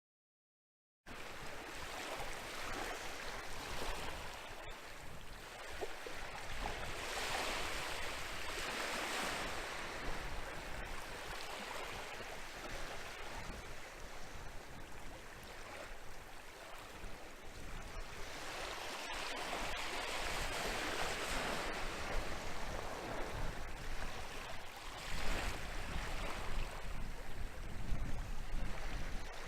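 Atlantic waves breaking and washing on a beach, with wind, starting about a second in. The surf swells and fades in slow surges every several seconds, with extra low rumble near the end.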